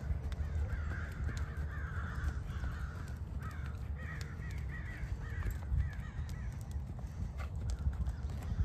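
Horse loping on soft sand footing, its hoofbeats a muffled, uneven low thudding. Over it, a bird gives quick runs of short, harsh, repeated calls, a few a second, for most of the first half and again near the end.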